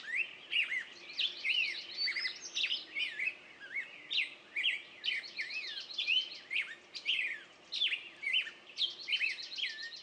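Small birds chirping: a dense, continuous string of short chirps and quick trills, several a second.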